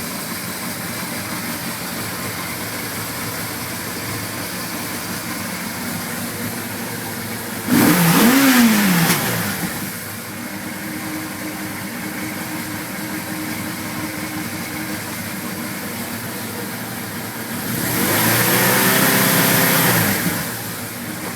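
1981 Suzuki GS850G's air-cooled inline-four engine idling steadily, blipped once about a third of the way in and revved again for a couple of seconds near the end. New cam buckets and reshimmed valves have cured its old clacking.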